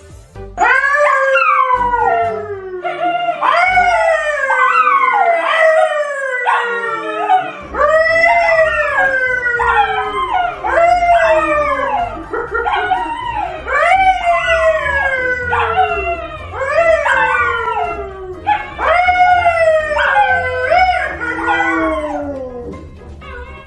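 A yellow Labrador and a brown poodle howling together with a man howling along: long, loud howls that slide downward in pitch, overlapping and repeating about once a second.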